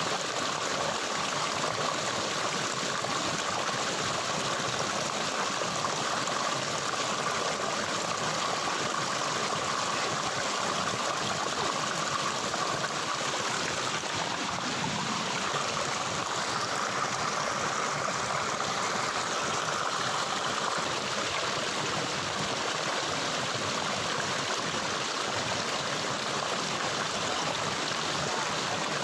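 Running water of a stream, flowing steadily.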